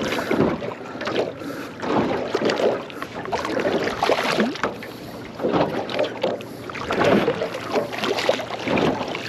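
Irregular splashing and knocking of water and gear at a fishing kayak as a hooked fish is brought in, with wind on the microphone.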